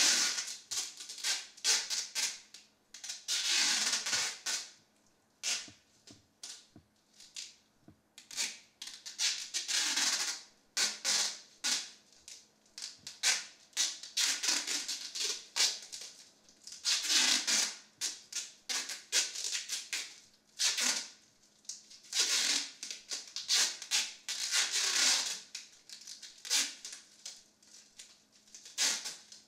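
Plastic film wrapped around a head crinkling and crackling as hands squeeze and pull at it: irregular runs of sharp crackles, with louder rustling rushes every few seconds.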